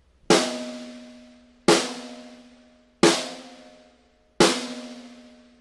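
Mapex Black Panther FastBack 12x7 six-ply maple snare drum, tuned low, struck in the centre of the head four times about a second and a half apart. Each hit rings out with a sustained tone and fades before the next.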